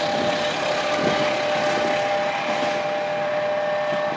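Passenger train rolling away over the rails, a steady rushing rumble whose high hiss thins out near the end. A steady two-note high tone runs throughout.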